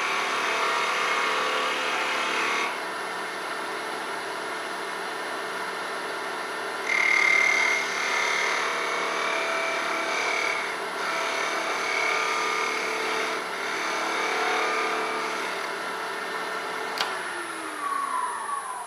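Wood lathe running with a turning tool cutting a small oak spindle: a steady motor hum under a scraping, shaving noise that swells and fades as the tool is worked. Near the end the lathe is switched off and its hum falls in pitch as it spins down.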